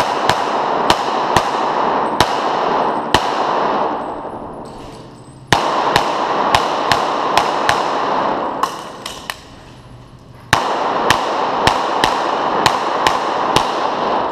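STI 2011 semi-automatic pistol firing three rapid strings of shots, about two to three a second, with breaks of about two seconds between strings. Each shot rings on in the echo of an indoor range bay.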